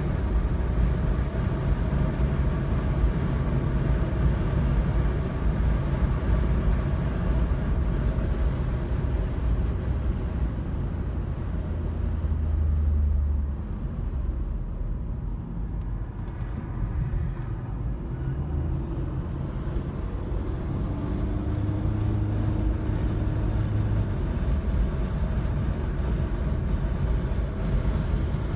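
Car engine and road noise heard from inside the cabin while driving at track speed: a steady low rumble that dips about halfway through, as the car slows into a corner, then builds back up.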